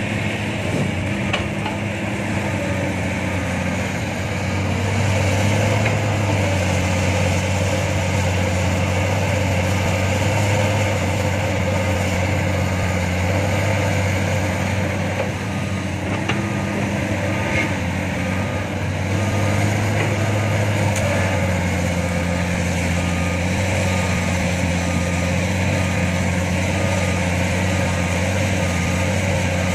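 Loaded dump truck's diesel engine labouring along a muddy, uphill dirt track, a steady low drone that rises in pitch and loudness twice.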